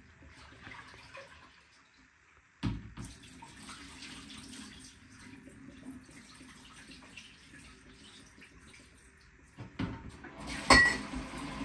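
Water running, with a sharp knock about two and a half seconds in and a louder knock near the end.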